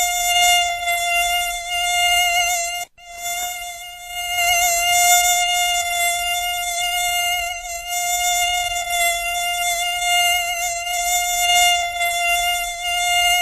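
Mosquito buzz: a steady high-pitched whine of beating wings, wavering slightly in pitch. It cuts out for an instant about three seconds in, then carries on.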